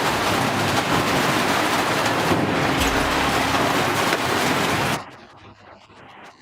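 Industrial shredder running under load: a loud, dense grinding noise full of small cracks. It cuts off abruptly about five seconds in, giving way to a much quieter machine background.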